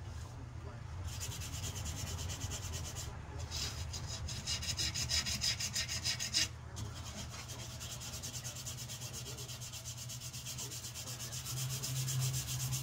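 Hand-sanding a knife clamped in a vise: sandpaper rubbed back and forth in quick, even strokes, with a couple of brief pauses.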